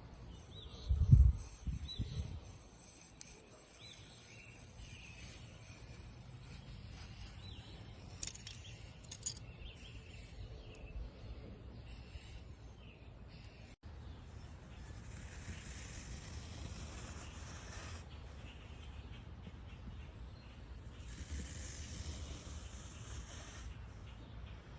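Kinetic sand being dropped and squished: two soft heavy thuds about a second apart near the start, then faint crackling and a steady soft hiss as the sand crumbles and is pressed.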